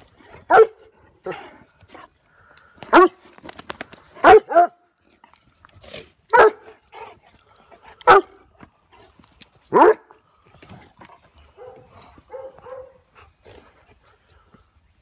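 A dog barking during play: single sharp barks every second or two, about seven in all, with a quick double bark about four seconds in. These give way to a few softer, shorter yips before it goes quiet near the end.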